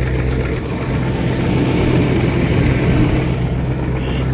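Ford 7.3 L Power Stroke V8 turbodiesel idling steadily, still warming up a couple of minutes after an unplugged cold start at 17 °F.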